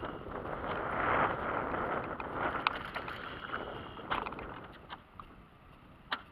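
Wind rushing over the microphone, strongest in the first two seconds and then easing off, with scattered light clicks and knocks after that and a sharper click near the end.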